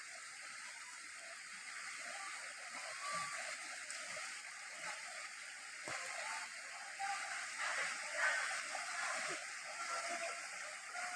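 Flooded river water rushing steadily, with a few faint short higher-pitched sounds over it in the second half.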